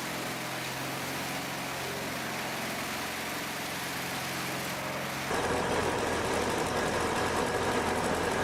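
Heavy machine engine running steadily with an even hum. About five seconds in, the sound cuts abruptly to a louder, noisier machine running.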